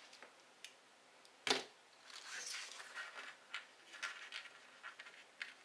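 Hands handling a model RC trail truck kit and its parts: light clicks and knocks of plastic and metal, one sharper knock about one and a half seconds in, then a run of small rustling and clicking sounds.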